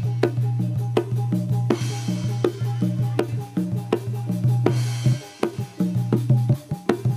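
Javanese jaranan-style performance music, led by drums and percussion over a steady low bass note, with short repeated higher notes. A hissing crash comes in about every three seconds. The bass drops out briefly about five seconds in and again near the end.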